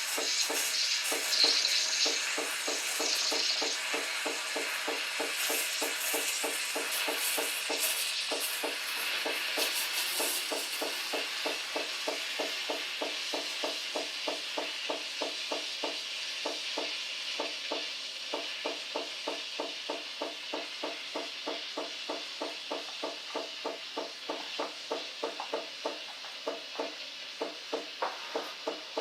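Krups XP 3440 espresso machine steaming, its steam wand hissing and spluttering, loudest in the first few seconds, over a steady rhythmic pulsing of about two beats a second from the machine's pump.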